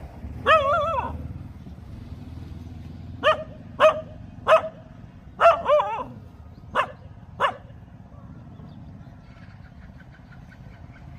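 Dog barking: about eight high-pitched barks in an irregular run, the first drawn out and wavering, the rest short and sharp, then a pause near the end.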